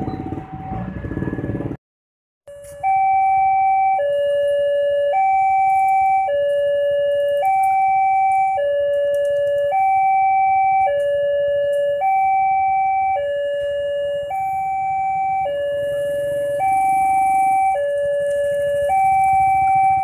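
Level-crossing electronic warning alarm sounding a steady two-tone pattern: a higher and a lower tone alternate, each held about a second. Before it, motorcycle engines at a crowded crossing, cut off abruptly.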